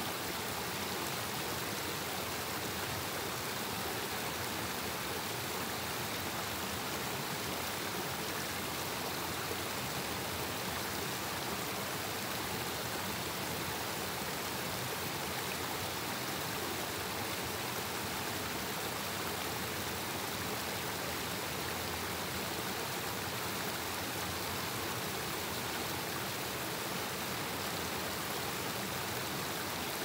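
Forest stream running over small cascades: a steady, even rush of water with no breaks or separate splashes.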